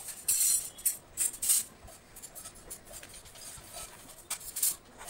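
Graphite pencil strokes scratching on drawing paper, a handful of short strokes in quick succession, then an eraser rubbing briefly on the paper near the end.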